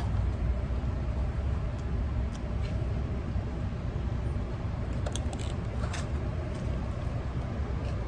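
Steady low outdoor rumble of background noise, with a few soft crinkles and clicks about five to six seconds in as a plastic ketchup packet is handled and torn.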